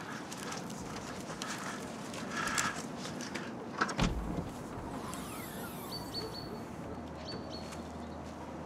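SUV tailgate unlatching with a click and a low thump about four seconds in, then a faint whirring as the lid lifts open.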